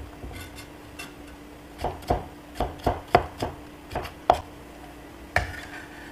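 Chinese cleaver chopping diced carrot on a wooden cutting board: a run of sharp, irregular knocks, most of them from about two seconds in. Near the end the blade scrapes the pieces up off the board.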